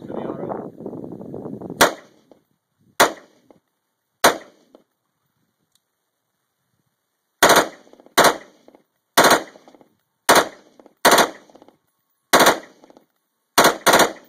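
AR-15 rifle in 5.56/.223 fitted with a Double Zero suppressor, firing about eleven single semi-automatic shots: three about a second apart, a pause of about three seconds, then eight in quicker succession. The first two seconds hold a rustling noise before the first shot.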